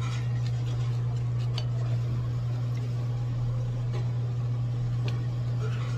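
A steady low mechanical hum of room machinery runs unchanged throughout, with a couple of faint light clicks.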